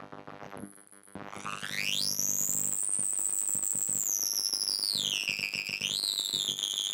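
DIY noise drone synthesizer: a low buzzy drone cuts out under a second in, and a high-pitched tone sweeps steeply up, holds, glides down around five seconds in, then jumps back up and holds steady.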